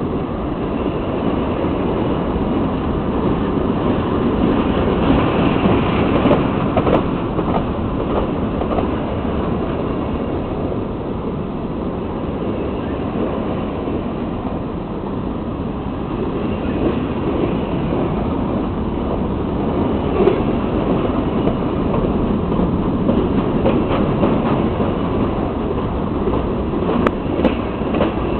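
Grain train's freight cars rolling past on the track: a steady rumble of steel wheels on rail with a few faint clicks.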